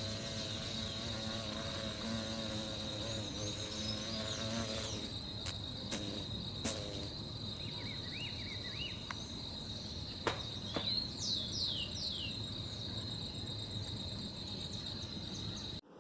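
Recorded buzzing of a flying beetle: a low droning hum for about five seconds over a steady high-pitched insect trill, then a few short chirps and clicks before the recording cuts off near the end.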